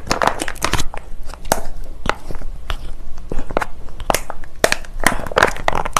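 Plastic spout pouch of sauce crinkling and crackling with sharp clicks as its stubborn cap is twisted and worked at, the pouch refusing to open.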